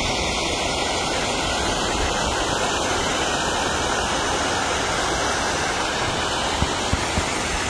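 Steady rushing of water from a partly frozen waterfall, an even unbroken noise with no change in level.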